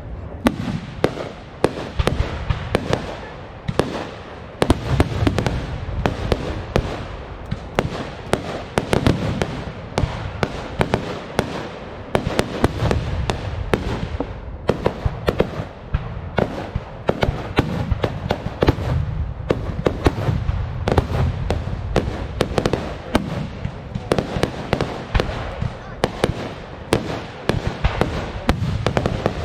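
Aerial fireworks display going off in quick succession: many sharp bangs several a second over a continuous low booming rumble.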